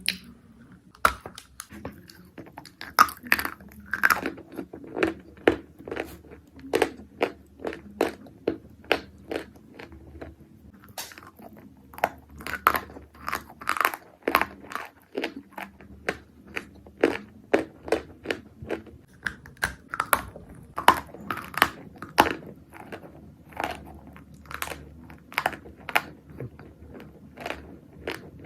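Pieces of Turkestan clay, an edible dried clay, being bitten and chewed close to the microphone: a steady run of sharp, dry crunches, about two a second.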